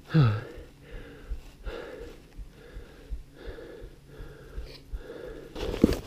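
A person breathing hard from exertion, a rasping breath about every three-quarters of a second, after a brief vocal 'oh' at the start. Footsteps in deep snow come in near the end.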